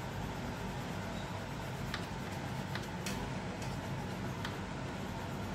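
Coloured pencil strokes on paper with a few faint ticks, over a steady background hum and hiss.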